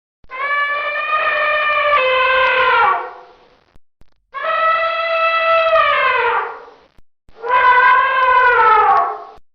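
Elephant trumpeting: three long brassy calls, each holding a steady pitch and then sliding down at its end.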